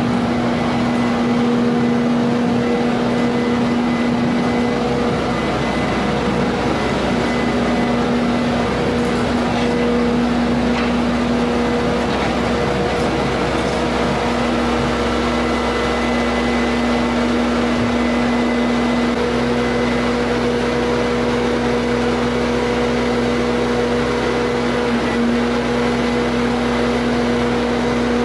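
Bobcat compact track loader's diesel engine running steadily at working revs with a constant hum as the machine lifts and places hay bales.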